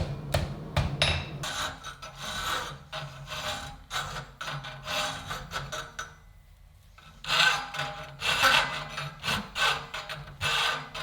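Hand file rasping over the steel figure in repeated short strokes, after a few light taps in the first second. The strokes pause for about a second around six seconds in, then resume.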